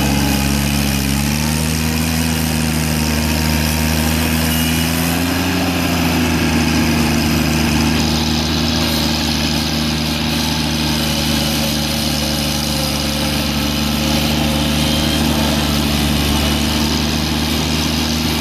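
1988 John Deere 322 garden tractor's Yanmar three-cylinder 18 hp gasoline engine running steadily at raised throttle while the tractor is driven. Its pitch rises a little about a second in and again around five seconds, then holds.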